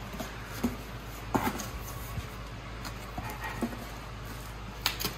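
Large cardboard shipping box being opened, its flaps pulled open and folded back: scattered knocks, scrapes and rustles of cardboard, with a few sharp ones near the end.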